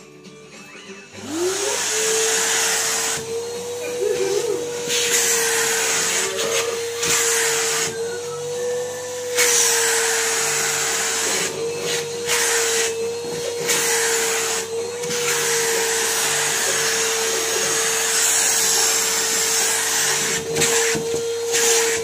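A Numatic Henry vacuum cleaner switches on about a second in. Its motor winds up to a steady whine with a rush of air while the hose nozzle is worked over sweatpants. The air noise dips briefly several times.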